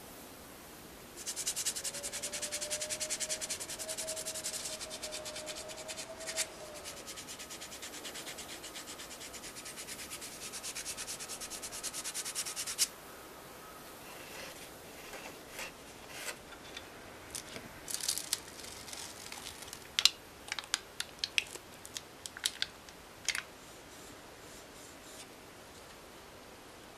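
Sandpaper on a block rubbed rapidly back and forth over a filler-patched plastic model grille, a fast steady rasping that stops abruptly about 13 seconds in. Scattered light scrapes and clicks follow.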